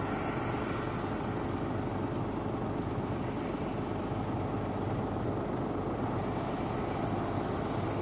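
John Deere S680i combine harvester running steadily under load while cutting barley: a constant mechanical noise of engine and threshing machinery.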